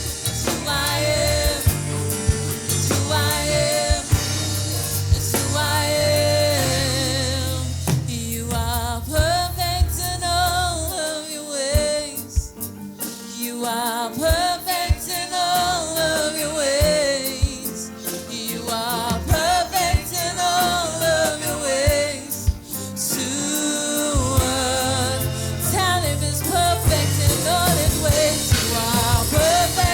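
Gospel worship song: a solo singing voice over a band with bass and drum kit. The bass drops out briefly twice, near the middle, leaving the voice more exposed.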